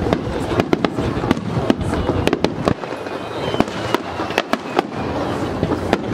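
Fireworks display: aerial shells bursting and launching in quick succession, an irregular string of sharp bangs, several a second, over a steady rumble and crackle.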